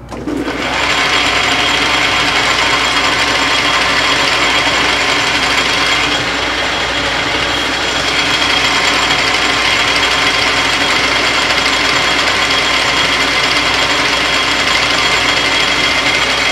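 Metal lathe starting up and running steadily with a high whine while the tool takes a turning pass on a hard steel shaft. It eases slightly for a couple of seconds about six seconds in.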